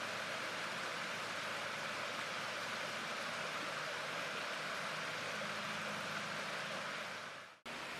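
Steady rush of a shallow river running over stones. Near the end it fades and cuts off for a moment, then a similar steady rush of water resumes.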